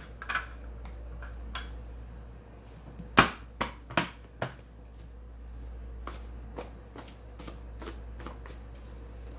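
Tarot cards being shuffled and handled: a run of light papery clicks, with a few sharper card snaps about three to four and a half seconds in.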